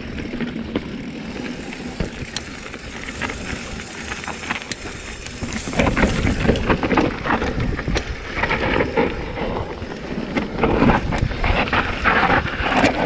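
Full-suspension mountain bike (Giant Trance) riding down a rough downhill trail: tyres on loose ground with the chain and frame rattling and clattering over bumps, mixed with wind on the microphone. It gets louder and rougher about six seconds in.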